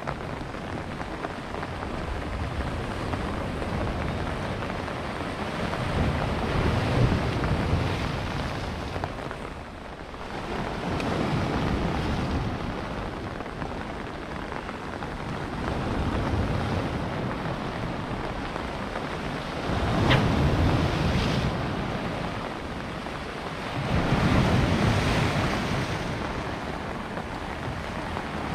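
Sea waves breaking and washing over rocks, the noise surging and falling every four to five seconds, with wind buffeting the microphone.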